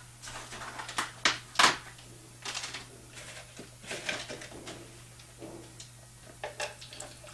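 Clicks and knocks of plastic being handled: a plastic mixing cup and a plastic gallon jug of distilled water picked up and turned over on the bench. Three sharp clicks come in the first two seconds, then softer scattered knocks and rustles, over a steady low hum.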